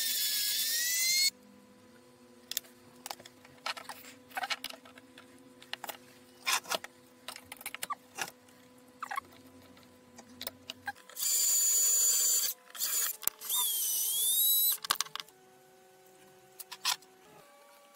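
Cordless drill-driver spinning in three short bursts, a high whine that dips and rises in pitch. Between the bursts come scattered clicks and taps of metal parts being handled.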